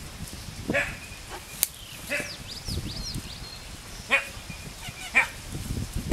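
A dog barking a few times, short single barks spread out with gaps between them. A single sharp click sounds about one and a half seconds in.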